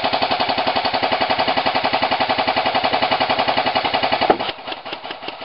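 Airsoft electric gun firing a long full-auto burst: a fast, even rattle of shots over a gearbox whine, which stops about four seconds in, after which a fainter rapid rattle of firing goes on.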